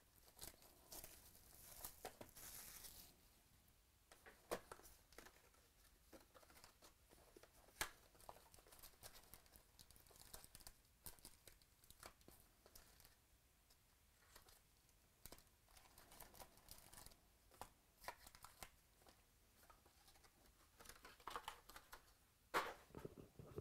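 Plastic shrink wrap torn off a box of trading-card packs, then the foil packs handled and set down. It comes as faint, irregular crinkling and crackling with a few sharper clicks, the loudest near the end.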